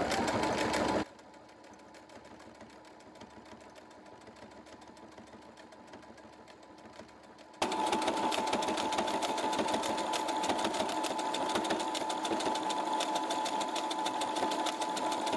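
Brother CS7205 sewing machine stitching through layers of duck canvas, its rapid needle strokes going at a steady even pace. The sound drops to a much fainter run about a second in, then comes back loud from about eight seconds on.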